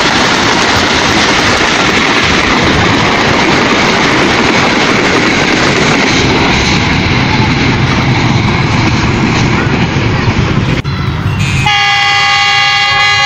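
A passenger train running at speed, a steady noise of wheels and carriage. About eleven seconds in the noise breaks off and a train horn sounds one long, steady note.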